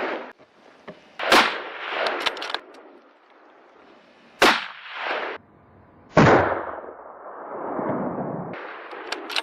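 Three gunshots, the first two about three seconds apart and the third under two seconds later, each followed by a fading echo; the last one trails off longest.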